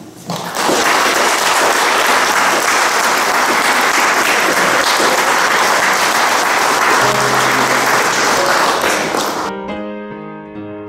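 Audience applauding steadily for about nine seconds, then cut off abruptly near the end as solo piano music begins.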